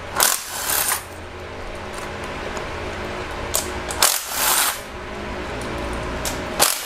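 Metal hand tools and engine parts clinking and rattling in about four short bursts over a steady hum, as the timing chain guide is worked loose.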